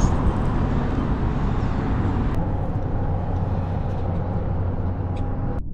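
Steady low outdoor rumble with hiss above it, dotted with a few faint clicks; near the end the hiss cuts off abruptly, leaving only the lower rumble.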